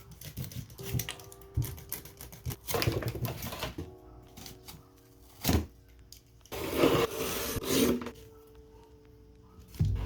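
Quiet background music, with several short bouts of clattering and rustling handling noise from work on a cardboard PC build. The longest bouts come about three seconds in and again past the middle, with one sharp knock between them.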